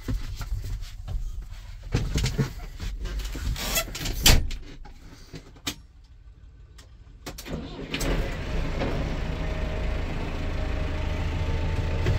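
Knocks and clicks inside a tractor cab, then a loud thud about four seconds in as the cab door shuts. After a short quiet the Case IH tractor's diesel engine is started with the key about eight seconds in and settles into a steady idle.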